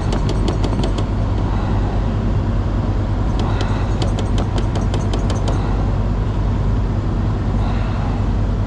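A truck's diesel engine idling steadily with a low hum. Two runs of rapid light clicking, about six a second, come once at the start and again from about three and a half to five and a half seconds in.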